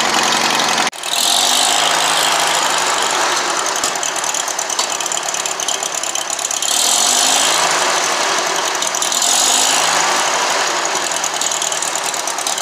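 Farmall H tractor's four-cylinder gasoline engine running, growing louder for a second or so a few times.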